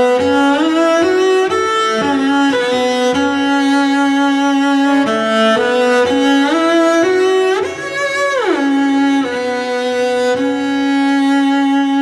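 Solo cello played with the bow: a slow melody of held notes in its upper-middle range, with a long downward slide about eight and a half seconds in, settling on one long held note.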